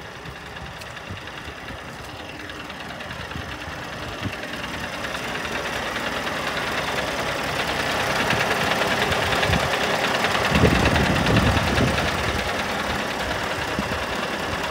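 Heavy diesel truck engine idling steadily, growing slowly louder, with a few dull low thumps about two-thirds of the way through.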